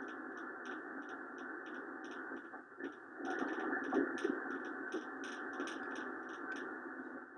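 Ten-Tec Pegasus shortwave receiver tuned to the 80-meter band, playing steady band-limited static hiss through its speaker, a little louder for a moment about three seconds in. Light, irregular clicks run over the hiss.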